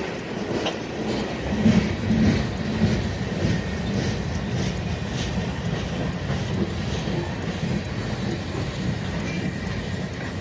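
Loaded flatcars of a freight train rolling past: a steady rumble of steel wheels on the rails, with scattered clicks and clanks from the wheels and cars, a little louder about two seconds in.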